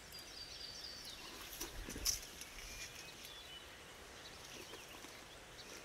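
Fallen figs being gathered by hand from dry, stony ground into wicker baskets: faint scattered rustles and clicks, with one louder knock about two seconds in. Faint bird chirps sound above it.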